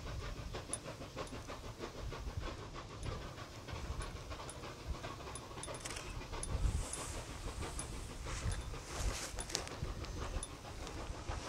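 Exhaust beats of two QJ-class 2-10-2 steam locomotives double-heading a heavy freight up a steep grade: a fast, even chuffing from the pair working hard, over a low rumble.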